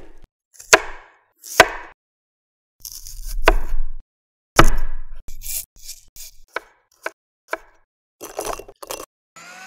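Kitchen knife cutting a whole pineapple: sharp knocks, then a crunching cut through the tough rind lasting about a second, then a loud knock of the blade onto the cutting board and a run of lighter clicks and knocks. Near the end a small electric food chopper starts, a steady hum rising slightly in pitch.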